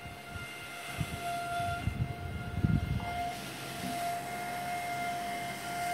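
Sunon MagLev 40 mm 12 V cooling fan running at about 8000 RPM: a steady, very slight high-frequency hum over its airflow. There are low thumps from handling in the first three seconds, and a soft air hiss fills in from about three seconds on.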